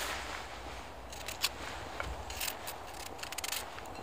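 Knife cutting a peeled potato in half: scattered short scrapes and clicks, with a quick run of small clicks near the end.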